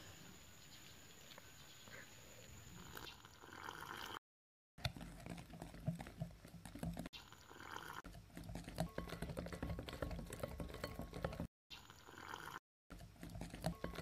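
Wire whisk beating milk and flour into pancake batter in a glass bowl: a fast, wet run of clicks and sloshing. The sound drops out abruptly a few times at cuts.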